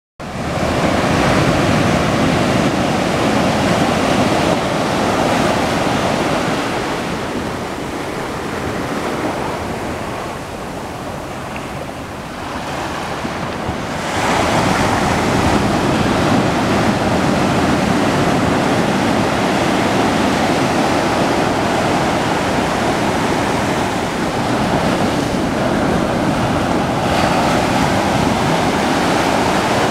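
Ocean surf: small waves breaking and washing up a sandy beach in a continuous rush. It eases off for a stretch in the middle, then grows louder again suddenly about halfway through.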